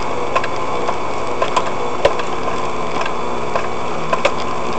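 4WD engine running steadily at low speed, heard from inside the cabin, with irregular sharp knocks and clicks as the vehicle crawls over a rocky track.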